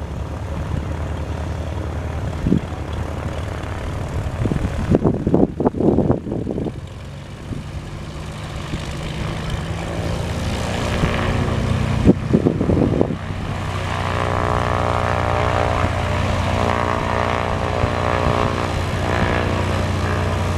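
Cessna 182T Skylane's six-cylinder Lycoming piston engine and propeller running steadily at taxi power, with two brief gusty rumbles about a quarter of the way in and just past halfway; the engine grows louder in the second half.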